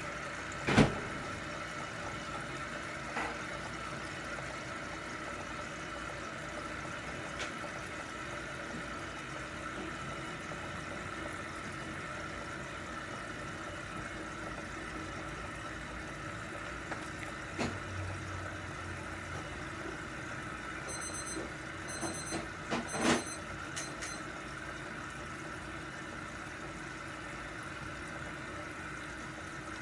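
Steady hum of an aquarium air pump, with a few sharp knocks: one about a second in and a short cluster about three-quarters of the way through.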